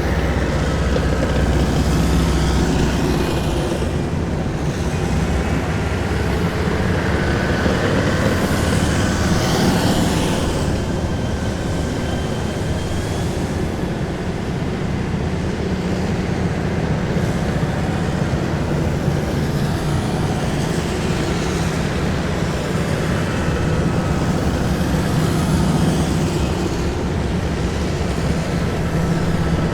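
A column of heavy military vehicles driving past: a continuous low engine rumble and tyre noise, with a steady engine hum and faint whines that slide down in pitch as individual vehicles go by.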